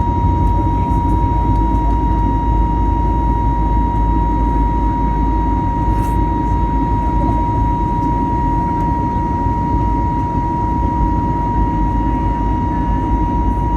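Airbus A320neo cabin noise in flight: a steady low rumble of engines and airflow, with one constant tone running through it.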